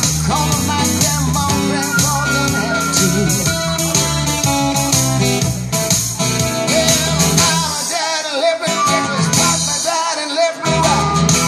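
Live acoustic guitar strummed with a harmonica wailing over it and a man singing. The guitar's low notes drop out briefly twice in the second half.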